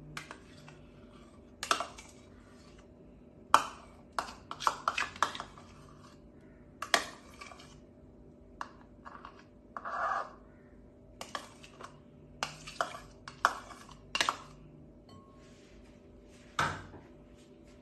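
A plastic measuring cup and spoon knocking and clinking against a glass mixing bowl as mayonnaise is scraped out of the cup. The knocks are irregular and sharp, with a quick cluster about four to five seconds in and a short scraping sound about ten seconds in.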